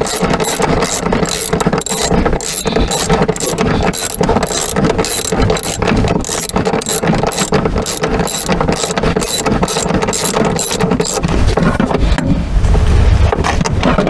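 Ratchet wrench with a 14 mm socket clicking in quick repeated strokes as a rear seatbelt anchor bolt is backed out of the car floor. The clicking stops about eleven seconds in, followed by low handling noise.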